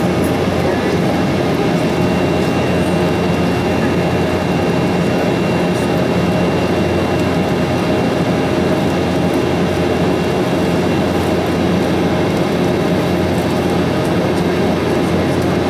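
Steady cabin roar inside an Embraer E195 airliner climbing after take-off, heard from a seat beside the wing: its GE CF34-10E turbofan engines at climb power and air rushing past the fuselage. A faint steady high whine runs through it.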